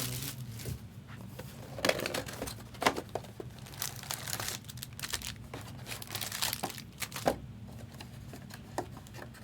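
Plastic wrapping crinkling and rustling in irregular handling noises, with occasional sharp clicks, as trading card boxes and packs are opened. A faint steady hum runs underneath.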